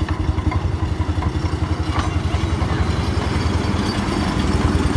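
Small engine of a ride-on toy train running with a fast, even pulsing chug, growing a little louder toward the end.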